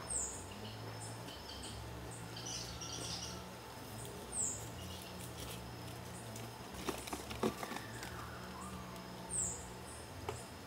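Outdoor ambience of birds and insects: three short, high, falling bird calls several seconds apart over high insect chirps repeating about twice a second. A faint steady low hum runs underneath, with a brief cluster of clicks about seven seconds in.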